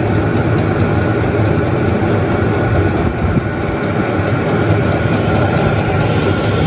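Vevor diesel air heater running at full heat: a steady blower and burner rush with a low hum and a steady whine. A faint, fast, even ticking runs under it.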